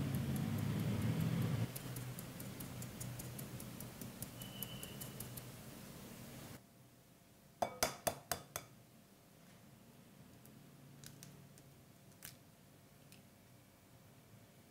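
A handheld stainless-steel sieve of flour shaken and tapped over a glass bowl, a low rustling rumble and then a run of quick light ticks, about four or five a second. After a sudden cut, an egg is rapped several times in quick succession to crack it, the loudest sounds here, and a few fainter clicks follow as the shell is broken open.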